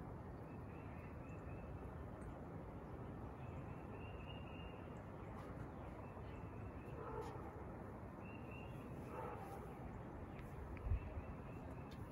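Faint backyard ambience: a steady low outdoor hiss with small birds chirping now and then in the distance. A single soft thump sounds near the end.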